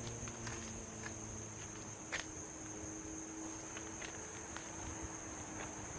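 Crickets chirring in a steady high-pitched chorus, with a faint low hum underneath and a single sharp click about two seconds in.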